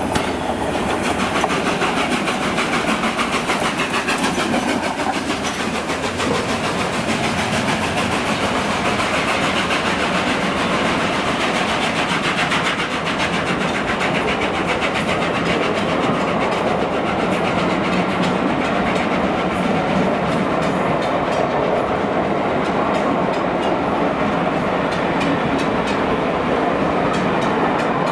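Steam locomotive 60163 Tornado, a Peppercorn A1 Pacific, passing close by, then its train of passenger coaches running steadily past with a constant rush and fast clicking of wheels over the rail joints.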